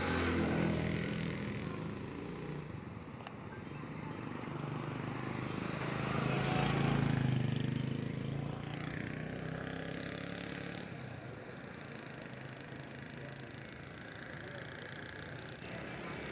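Road vehicle driving along a road: a steady engine hum and tyre noise, swelling about halfway through as a motorcycle's engine comes close, with a steady high-pitched drone underneath.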